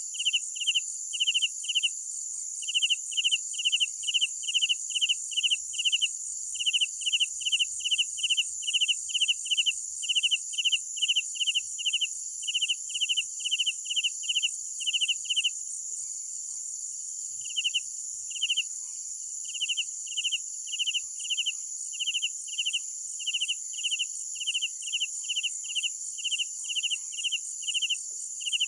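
Night crickets: one close cricket chirping in an even rhythm, about two or three chirps a second, pausing briefly a little past the middle, over a steady high-pitched trill.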